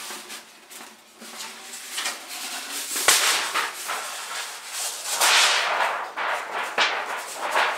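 Thin titanium stove parts scraping and rubbing against each other as they are forced to fit together, with a sharp click about three seconds in.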